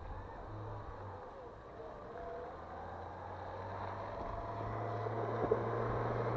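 Chevrolet Niva SUV's engine running as the vehicle drives toward the listener, growing steadily louder.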